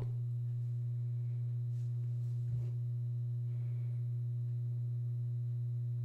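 Steady low hum holding one pitch, with fainter overtones above it, and a faint tap about two and a half seconds in.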